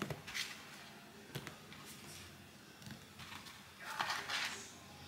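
Faint, scattered light clicks and rustles of small items being handled, with a longer rustle about four seconds in.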